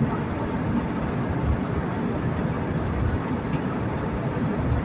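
Steady cabin noise of an airliner in descent: an even rush of airflow and engine noise, strongest in the low range, with no distinct events.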